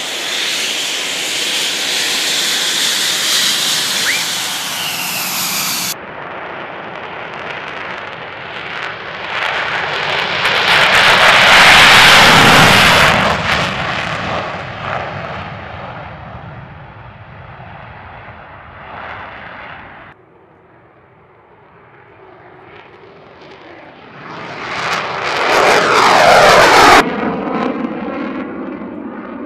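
F-16 fighter jet engine in three cuts. First a high whine while taxiing, then a loud takeoff run with the afterburner lit, loudest about 12 seconds in. Near the end the jet passes with a falling pitch.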